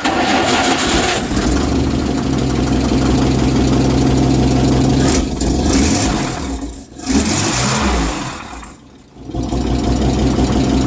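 GAZ-69's four-cylinder flathead petrol engine starting on the choke for the first time after a rebuild. It catches at once and runs unevenly with revving. It falters about nine seconds in, then runs again.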